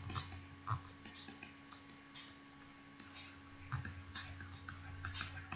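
Faint, irregular taps and scratches of a stylus writing by hand on a tablet, over a steady faint electrical hum.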